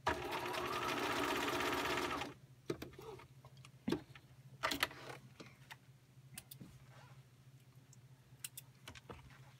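A Bernina 1010 home sewing machine runs at speed for about two seconds, stitching a short seam, then stops abruptly. A few light scattered clicks follow as the work is handled.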